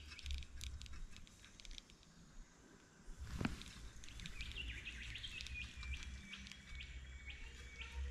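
Birds chirping and calling, with quick high notes at first and later a thin drawn-out call broken by regular ticks. A single sharp click sounds about three and a half seconds in, over a faint low rumble.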